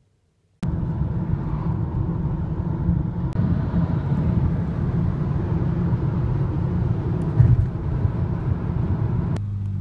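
Steady road and engine noise inside a car travelling at motorway speed, starting abruptly just under a second in, with sudden shifts where clips are joined about a third of the way in and near the end.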